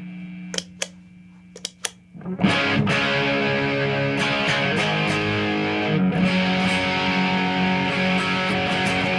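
Electric guitar (Epiphone Les Paul) played through a Marshall JCM 2000 TSL 60 valve amp. A held note fades out, there is a short quiet gap with a few sharp clicks, and then about two and a half seconds in a loud, distorted strummed riff starts and carries on.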